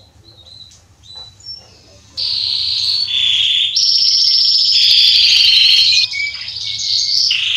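Male domestic canary singing: a few soft chirps, then about two seconds in a loud, fast trilling song of rolling phrases that switch to a new pitch every second or so.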